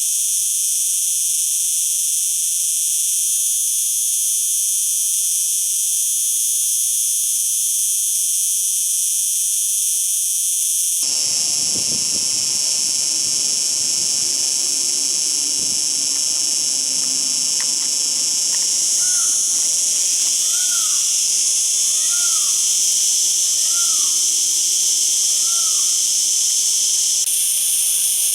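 Male cicada singing: a loud, continuous, high-pitched buzz that never breaks. Partway through, the recording changes and a low background noise comes in. Near the end, a faint short chirp repeats five times behind the buzz.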